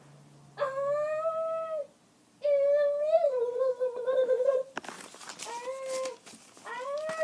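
A boy making high-pitched, drawn-out wordless vocal noises, about five in a row, each holding a pitch for a second or two and then dropping. A brief rough, noisy burst comes about five seconds in.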